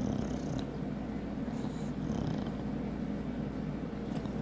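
English bulldog puppy breathing with a steady, low, purr-like rumble through its short nose as it chews on a string, with faint wet mouth noises.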